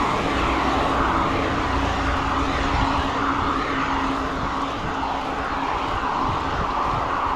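Riding noise from a road bike on a wet road: wind rushing on the microphone and tyre hiss, a steady loud noise with a low rumble and a faint steady hum. The hiss swells and fades at a regular pace, a little faster than once a second.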